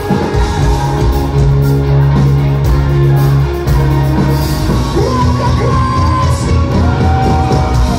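Heavy rock band playing live through a hall PA: electric guitars, bass and drums, loud and continuous, with singing and shouting. A sung line comes in from about halfway through.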